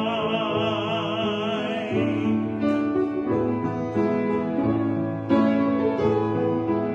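A solo singer holds the song's last note with a wide vibrato over piano accompaniment. The voice stops after about two seconds and the piano plays on alone with a few closing chords.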